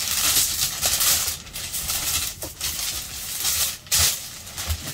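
Tissue paper rustling and crinkling in irregular swells as it is lifted and unfolded out of a shoebox.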